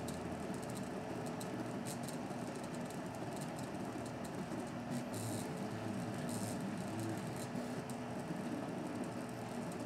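Original Printrbot 3D printer's stepper motors running through a print: a steady motor whine with short gliding changes in pitch as the head and bed move, and a few faint rattles. The motors carry a slight squeal.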